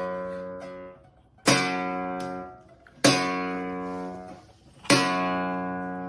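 Guitar music: slow single chords, each strummed once and left to ring and fade, with three new strums spaced about a second and a half apart.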